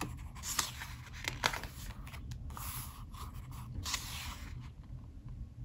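Pages of an album photobook being turned and handled: a few short paper rustles and scrapes over a low steady room hum.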